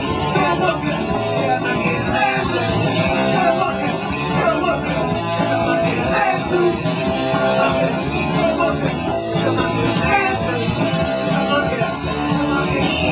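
Punk rock band playing live: electric guitar, bass guitar and drums at a steady, loud level.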